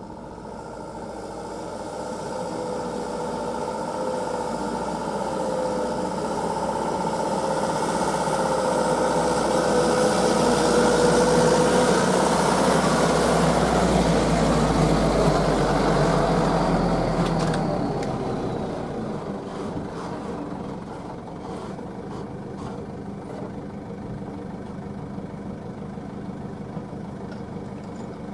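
Heavy diesel engine working under load, its sound building over about twelve seconds with a wavering drone, then easing off sharply about eighteen seconds in and settling to a steady, quieter idle.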